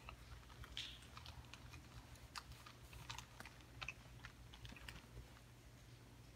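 Faint, irregular small clicks and crinkles of communion sets being handled, over a low steady hum.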